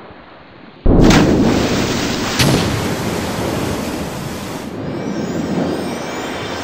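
Cartoon sound effect of a powerful rush of water: a sudden loud blast about a second in, a second sharp hit a second and a half later, then a steady rushing noise that slowly fades.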